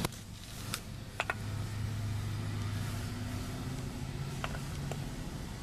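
A steady low hum, with a few light clicks and taps of handling noise about a second in and twice more past the middle, as the phone or camera is moved around under the truck.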